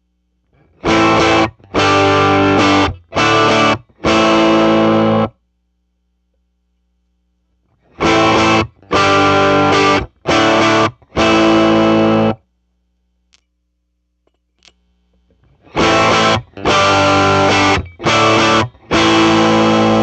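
Electric guitar played through a 1963 Vox AC10 valve amplifier: three short phrases of four chords each, with pauses between them. A faint hum from the amp is left in the pauses.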